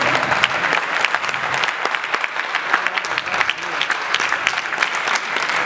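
Audience applauding: many hands clapping at once, a dense, steady clatter of claps.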